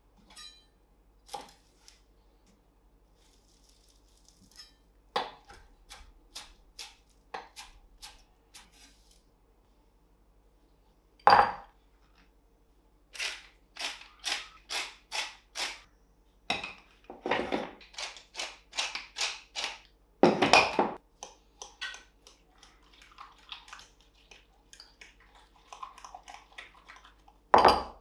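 Kitchen food-prep sounds: a knife tapping on a wooden board in quick strokes, a loud knock, a wooden pepper mill grinding in a row of short even strokes, then a spoon stirring and clinking in a glass bowl of egg mixture, with another sharp knock near the end.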